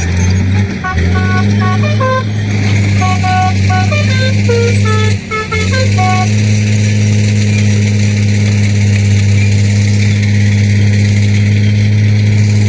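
Hino dump truck's telolet 'basuri' multi-tone horn playing a melody of short stepped notes during roughly the first six seconds, over a steady low drone that dips briefly twice and then carries on alone.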